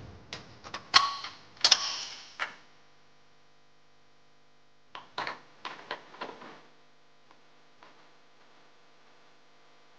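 Sharp metallic clicks and clinks of hand tools and bolts on truck suspension hardware. There is a quick run of them at the start, then a pause, then another cluster about five seconds in.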